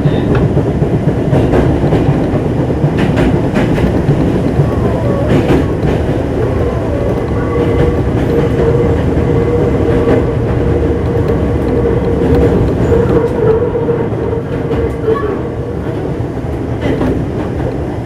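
Running sound inside the motor car of a 205-series electric multiple unit with inner-fan traction motors: a steady rumble of wheels on rail, with clicks as the wheels cross rail joints. A steady whine comes in about halfway and fades out a few seconds before the end.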